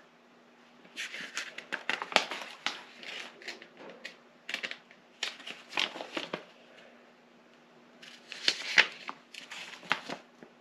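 Paper rustling and crinkling in short irregular bursts as folded instruction sheets are handled and their pages turned.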